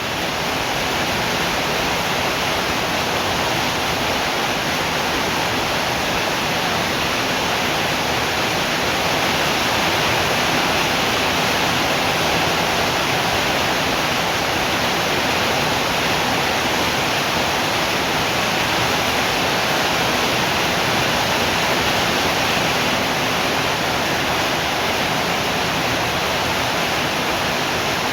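Steady rain falling, an even, unbroken hiss across all pitches.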